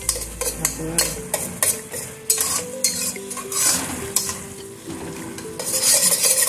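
Metal spoon stirring and scraping a thick paste in a stainless steel pot, with repeated irregular scrapes against the pot over a steady sizzle of frying.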